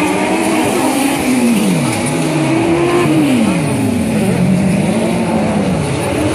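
Autocross racing buggies' engines running hard on the track. The pitch climbs and falls again and again as they accelerate and ease off, with more than one engine heard at once.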